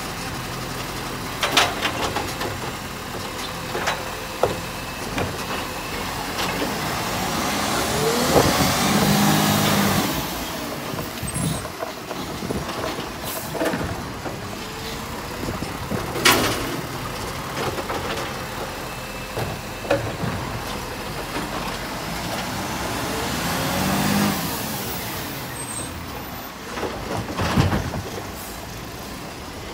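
Iveco side-loader garbage truck running at the kerb while its automated arm lifts and tips wheelie bins, with scattered clanks and knocks. The sound rises and falls in two long swells, about a third of the way in and again near the end.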